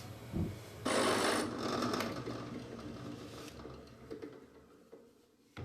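A power tool cutting into a walnut workpiece: a sudden burst of cutting noise about a second in that fades away over the next few seconds.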